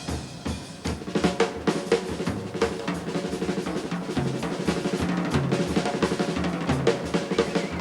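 Instrumental band music driven by a busy drum kit, with snare and bass drum hits at a steady beat over a moving bass line.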